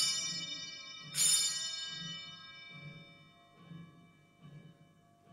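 Altar bell struck at the elevation of the consecrated host: one clear strike right at the start and another about a second later, each ringing on and slowly fading, with fainter ringing after.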